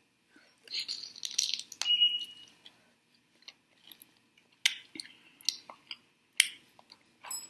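Close-miked chewing and lip-smacking of a person eating sauced chicken wings: irregular wet mouth clicks, busiest and loudest a second or two in, then sparser single smacks.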